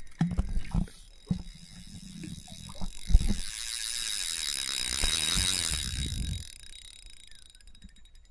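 Fishing reel ratcheting and whirring as a hooked carp is played on the line. The rapid clicking builds a little over a second in, is loudest in the middle and dies away about two-thirds of the way through, with a few dull knocks of handling near the start.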